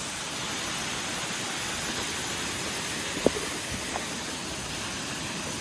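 Waterfall rushing steadily close by, a dense, even hiss of falling water. There is a single sharp click about three seconds in.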